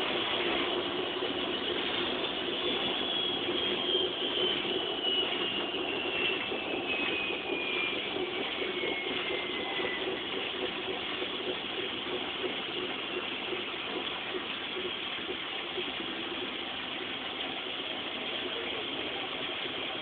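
A 1999 Ariston AL1056TX washing machine in its final spin, the drum and motor running fast with a steady rattling whir. A high motor whine falls steadily in pitch over the first half.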